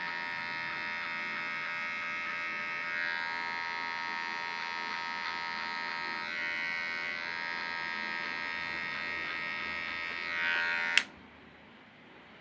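Cordless hair clipper buzzing steadily as it cuts short hair at the nape, its blade lever closed to zero. It switches off with a click about eleven seconds in.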